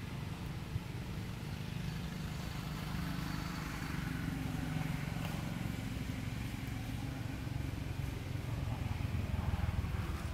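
Steady low outdoor rumble of background noise, with no distinct animal calls or knocks standing out.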